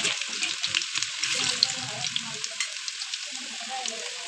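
Thin potato slices deep-frying in hot oil in a metal pan, a steady sizzle full of tiny crackling pops. A metal utensil stirs them through the oil during the first couple of seconds.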